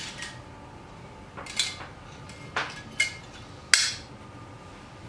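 Stainless steel rotary cheese grater parts clinking and knocking as the grater frame is handled and set down on a wooden table: about four sharp metallic knocks, the loudest near the end.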